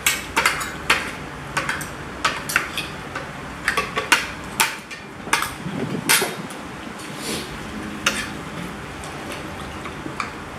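Forks, spoons and knives clinking against ceramic plates and bowls while people eat, a string of irregular sharp clinks.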